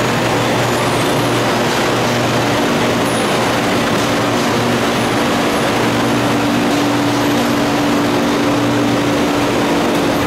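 Bangkok BTS Skytrain train standing at the platform, giving a steady hum with a low drone held throughout, over constant noise.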